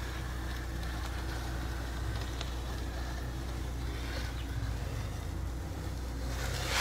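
Faint scraping of a plastic corner tool drawn along wet joint compound in a plasterboard corner, over a steady low rumble. A brief, louder scrape or rustle comes near the end.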